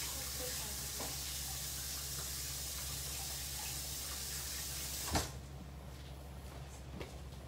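Kitchen tap running steadily as hands are washed under it, then turned off with a click about five seconds in.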